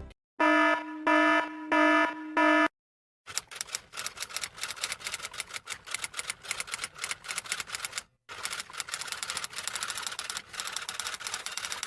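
Four short electronic alarm beeps, then rapid typing clicks, many a second, with a brief pause near the end.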